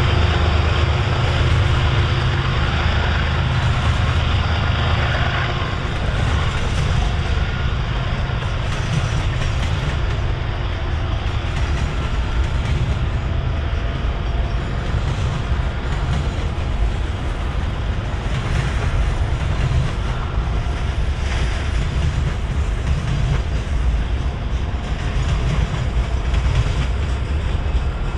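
Double-stack intermodal freight train rolling past, steel wheels clattering over the rail joints, with a deep rumble that is heaviest in the first few seconds.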